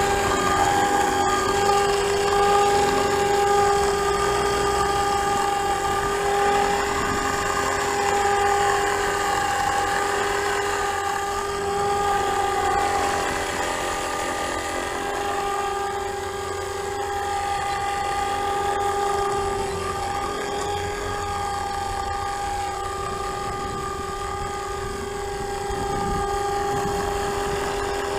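FORZA450 RC helicopter hovering: a steady whine from the motor, gears and spinning rotors, its tone wavering slightly as the helicopter shifts in the air. The main gear is partly stripped, which the owner found to be the cause of an odd noise while the rotors turned.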